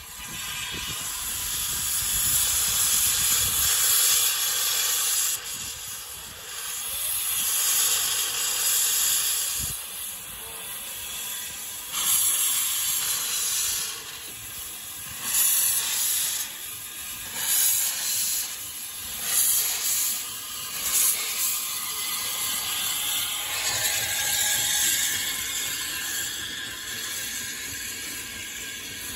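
Steam locomotive hissing loudly as steam is blown from its cylinder drain cocks. It starts as a steady hiss, then comes in a string of separate blasts as the engine starts its train away.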